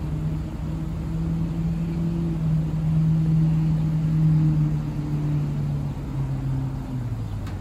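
2001 GMC W350 cab-over dump truck's 5.7-litre gasoline V8 running steadily while the dump bed lowers. Its pitch drops in steps over the last second or so.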